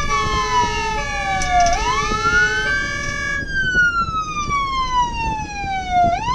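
Fire engine's electronic wail siren sliding slowly down and back up in pitch, with a two-tone horn alternating between two notes over it until about halfway through, then the wail alone; low road and engine rumble beneath.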